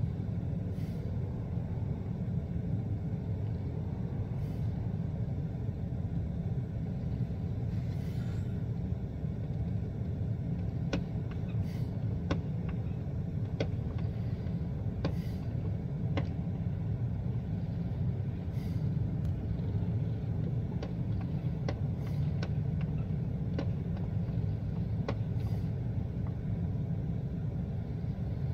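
Fireworks going off in the distance: a dozen or so sharp pops at irregular intervals, starting about eleven seconds in, over a steady low rumble.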